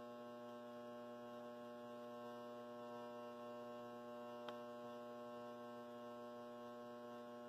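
A roughly 9 MHz high-frequency solid-state Tesla coil running continuously, its flame-like arc burning off a carbon-rod breakout point, giving a steady hum with many overtones. There is one faint tick about four and a half seconds in.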